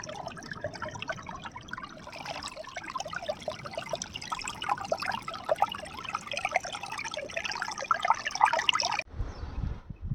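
Flowing water trickling and splashing. It cuts off suddenly about nine seconds in, and a low rumble follows.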